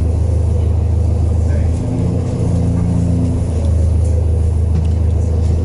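Inside a New Flyer XDE40 diesel-electric hybrid bus under way: a steady low drone from its Cummins ISL9 diesel and hybrid drive. The pitch of the drone shifts about two seconds in, and again a second and a half later.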